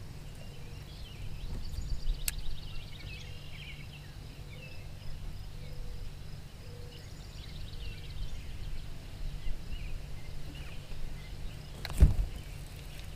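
Small birds chirping over a steady low hum, with a sharp click about two seconds in and a loud thump near the end.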